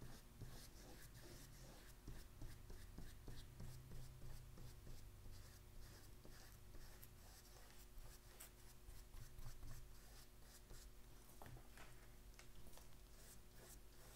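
Faint, repeated strokes of a watercolor paintbrush brushing back and forth across paper covered in oil pastel.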